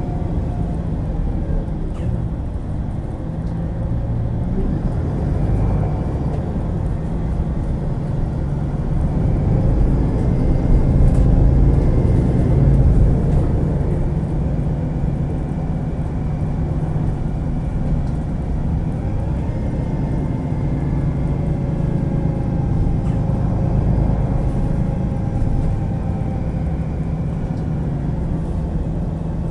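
Diesel engine and ZF EcoLife automatic gearbox of a MAN Lion's City G articulated bus running under way, with a steady low rumble and engine pitch rising and falling as it speeds up and changes gear. It is loudest about ten to thirteen seconds in.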